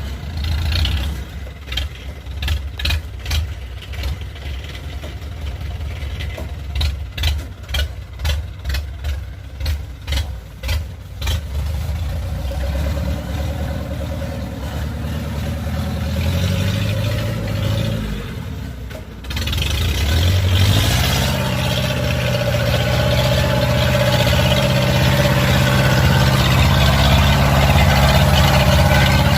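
Kubota DC-70 Plus combine harvester's diesel engine running, with a string of clattering knocks in the first third. About two-thirds of the way through it steps up suddenly to a louder, steady working run with a droning hum.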